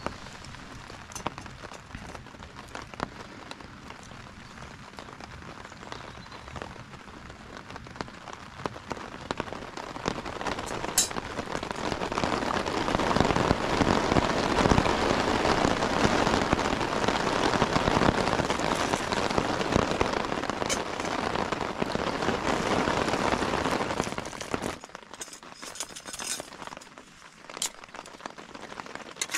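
Rain pattering on tent fabric, growing heavier through the middle and then dropping off suddenly near the end, with a few sharp clicks.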